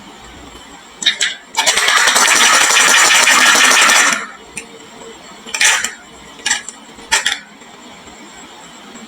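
Marbles rolling and clattering down a wooden marble-run slope: a few single clicks, then a loud dense rattle for about two and a half seconds, then three or four more separate clicks.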